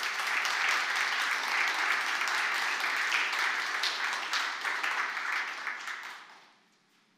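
Audience applauding, a steady patter of many hands clapping that dies away about six seconds in.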